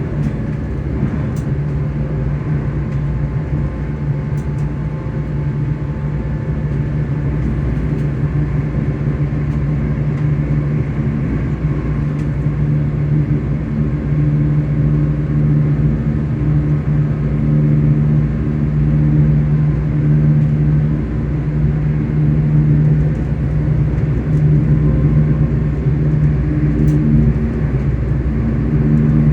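Traction motor hum and running noise inside a ScotRail Class 385 electric multiple unit in motion: a steady low hum over rail rumble, growing gradually a little louder.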